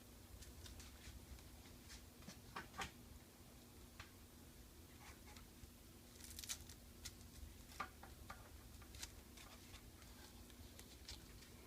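Near silence: faint scattered small ticks and light rustles from handling the work, over a faint steady hum.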